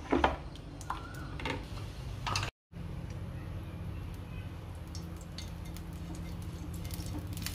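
A spoon stirring thin dosa batter in a bowl, giving a few light clicks and scrapes. After a brief dropout, a low steady hum with faint ticks comes in as a brush spreads oil on a non-stick tawa.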